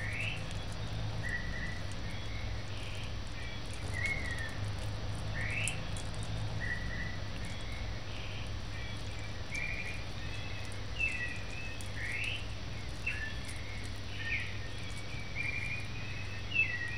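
Birds chirping and singing over and over in short rising notes and quick trills, above a steady low hum.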